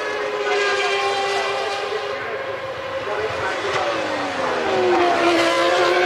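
1997 Formula One racing engines screaming at high revs. Partway through, one car's engine note drops steeply as it slows, then climbs again as it accelerates away.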